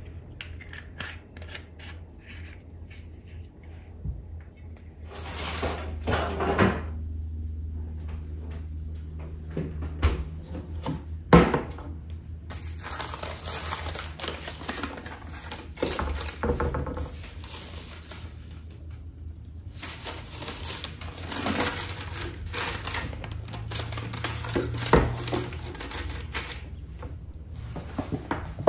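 Close-up handling sounds: scattered knocks and clinks of glass jars and a plastic fridge crisper drawer, then, from about halfway, a long stretch of newspaper rustling and crinkling as sheets are laid into the drawer.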